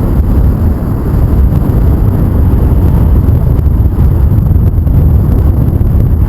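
Heavy wind buffeting the microphone of a camera carried on a paraglider in flight, a loud low rumble that drops away suddenly at the end.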